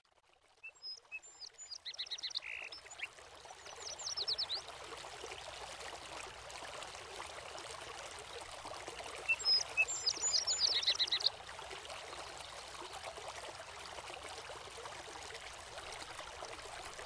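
Steady rushing of running water, with small birds chirping in two short spells, a couple of seconds in and again about ten seconds in.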